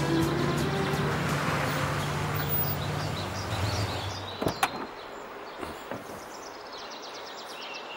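Background music fading out over the first few seconds, then a pickup truck's door clicks open about four and a half seconds in, followed by faint bird chirps.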